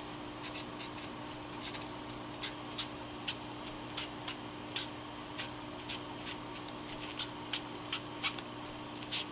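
Tombow brush marker tip flicking short strokes across card stock: a string of soft, quick scratches, irregular, two or three a second, over a faint steady hum.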